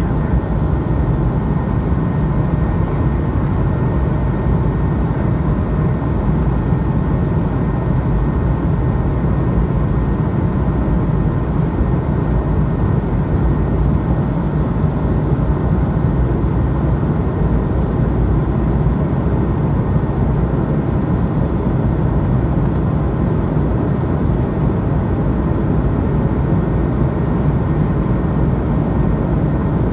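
Airbus A220 cabin noise in the climb after takeoff, heard from a window seat over the wing: an even, steady rush of air and engine from its Pratt & Whitney PW1500G geared turbofans, mostly a low rumble with a faint steady hum above it.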